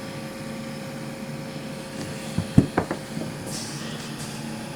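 Steady low background hum with a few short, light knocks a little past halfway through.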